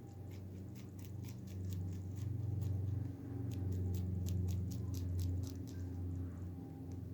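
Mini lop rabbit chewing fresh cilantro: quick crisp crunching clicks, a few a second, over a low steady hum.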